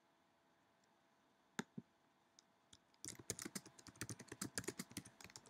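Typing on a computer keyboard: a few separate clicks, then a quick run of keystrokes starting a little past halfway.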